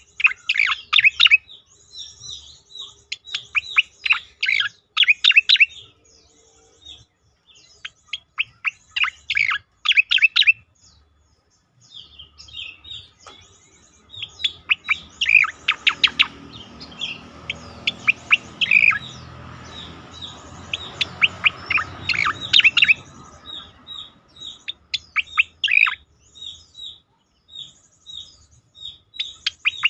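Striated grassbird (cica koreng) singing: phrases of quick, sharply falling notes repeated in bursts, with short high chips between them. A soft noise runs underneath through the middle stretch.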